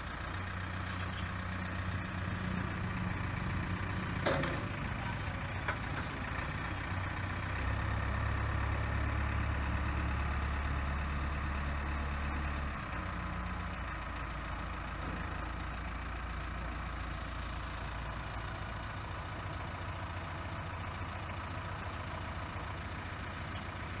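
JCB 3DX backhoe loader's 4.8-litre naturally aspirated four-cylinder JCB ecoMAX diesel running steadily while the backhoe arm is worked hydraulically. The engine gets louder for about five seconds in the middle under the hydraulic load, with a brief click about four seconds in.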